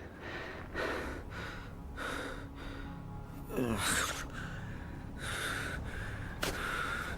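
A man breathing hard in loud, ragged gasps, roughly one a second, one of them voiced with a falling pitch, out of breath from fighting. Low background music underneath.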